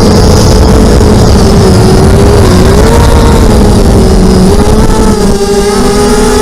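Electric motor and propeller of an FPV model aircraft running in flight, a loud steady whine that wavers a little with the throttle over heavy wind rumble on the onboard microphone.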